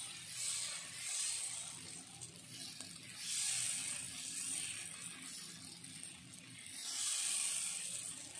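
Steel ladle spreading dosa batter in circles across a hot iron tawa: a faint scraping hiss of the ladle and sizzling batter that swells and fades about three times as it sweeps round.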